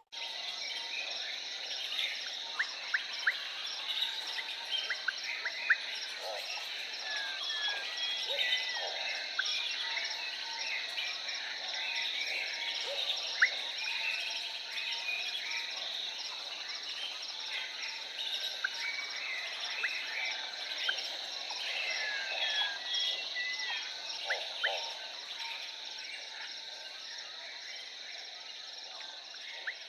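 Jungle ambience: a dense insect chorus with a steady high buzz and a fast pulsing trill, with scattered short bird chirps and calls over it.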